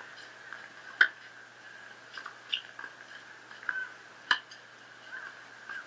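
Tennis racket strokes in a doubles rally: two sharp pops of racket on ball, about a second in and about three seconds later, with a few faint shorter sounds between them.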